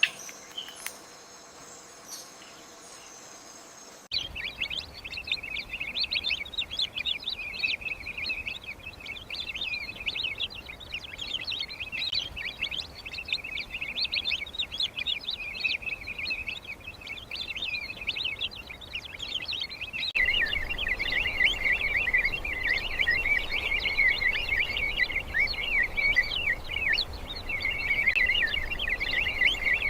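A dense chorus of many birds chirping and twittering at once, starting abruptly about four seconds in and growing louder after a sudden jump about twenty seconds in.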